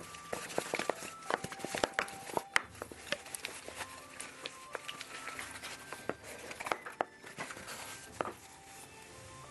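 Wooden spatula working sticky mochi dough in a metal bowl: a run of irregular knocks, clicks and scrapes against the bowl, thinning out near the end.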